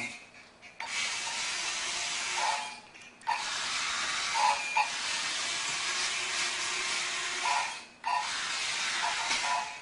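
Animated robot Halloween prop, switched on and turning its skull head, giving off a loud steady hiss in three long stretches with short breaks about three seconds in and near eight seconds.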